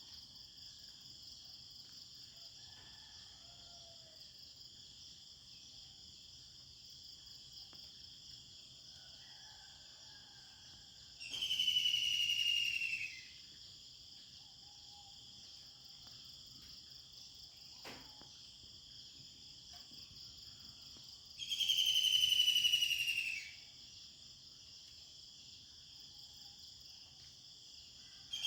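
Steady high-pitched chorus of insects such as crickets in a rural morning ambience, with faint bird calls underneath. Twice, a loud call falls in pitch over about two seconds, and there is one sharp click about 18 seconds in.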